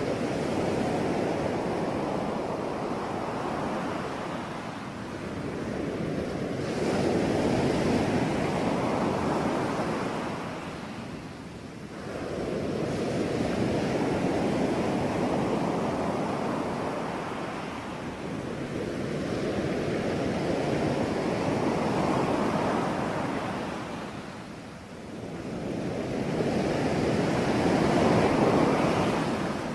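Ocean surf: waves rolling in and washing back in a steady rush that swells and fades about every six to seven seconds.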